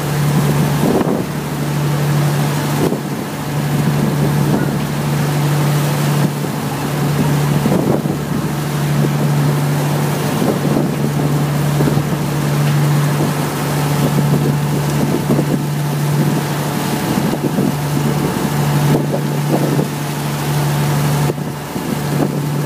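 A boat's engine running steadily under way, a constant low hum, with wind gusting on the microphone.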